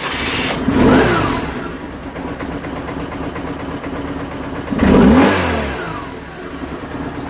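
BMW R850R's 848 cc boxer twin, just started from cold, idling steadily and blipped twice on the throttle, about a second in and again about five seconds in, each rev rising and falling back to idle.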